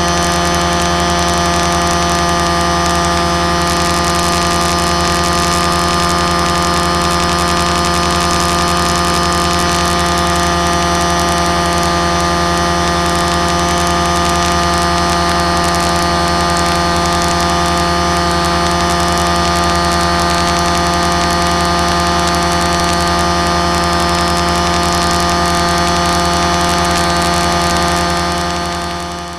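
Aircraft motor and propeller running at a steady speed, heard through a small onboard camera: a constant drone made of several fixed tones over a rushing noise, fading down near the end.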